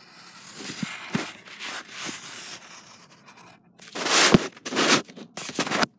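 Pencil scratching across paper in a series of short strokes, fainter at first, with a cluster of louder strokes from about four seconds in.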